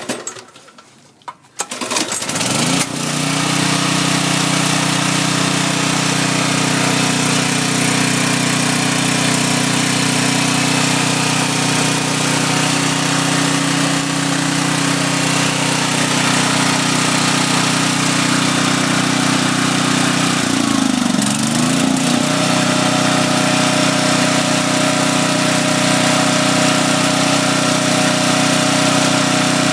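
Husky 6250 portable generator's Briggs & Stratton OHV engine pull-started, catching about two seconds in and then running steadily at its governed speed. About 21 seconds in its speed dips briefly and then recovers.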